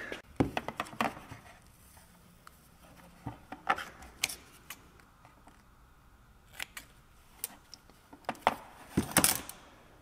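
Vinyl electrical tape being handled, pulled from a new roll and cut with scissors: scattered short crinkling and snipping sounds, with a louder brief rasp about nine seconds in.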